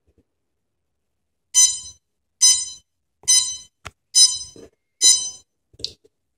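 DJI electronic speed controllers on a quadcopter beeping five times, about one beep a second, each a short bright tone that fades quickly. The repeated beep means the ESCs are getting no throttle signal, because the Pixhawk's safety switch is still flashing red. A couple of faint clicks fall between the later beeps.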